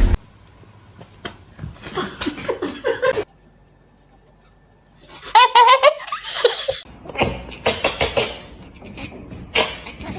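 People laughing in repeated bursts, with a brief lull in the middle before a louder run of laughter.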